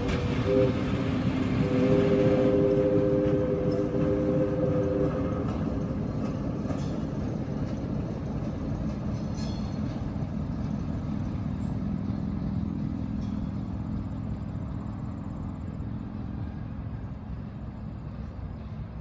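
Diesel locomotive horn sounding a chord at a grade crossing: one blast ending just after the start and a longer one from about two to five seconds in. The train then rumbles and clicks over the rails as it moves away, fading steadily.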